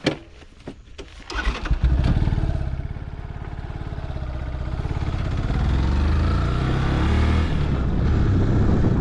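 A few clicks, then a Yamaha FZS V3 motorcycle's single-cylinder engine starts about a second and a half in and keeps running, growing louder over the next few seconds.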